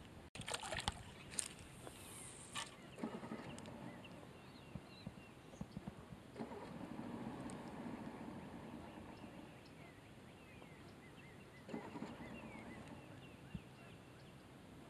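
A bluegill splashes into the water as it is tossed back, with a few sharp clicks. After that a distant small boat's outboard motor comes and goes faintly in two spells, as its owner tries to get it started. A few faint chirps sound over it.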